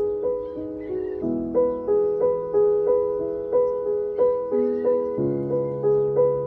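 Background piano music: a gentle repeating pattern of notes, about three a second, over low held notes that change twice.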